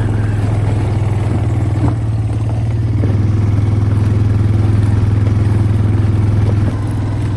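ATV engine running at a steady speed, with a small click about two seconds in and the engine note dropping slightly near the end.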